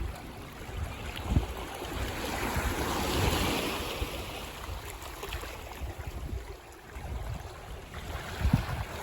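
Ocean waves on a beach: one wave's rush of surf swells to a peak about three seconds in and then slowly washes back, over steady surf noise. Short low thumps of wind on the microphone come twice.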